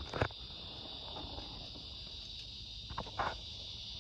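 Steady, high-pitched chorus of insects such as crickets or cicadas in the surrounding grass, with two thumps about three seconds apart.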